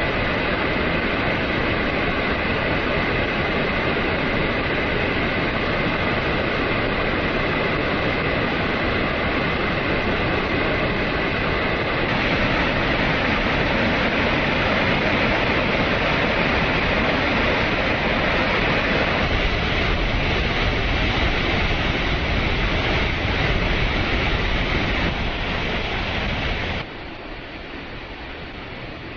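Loud, steady roar of rushing floodwater, changing in tone a few times and dropping much quieter near the end.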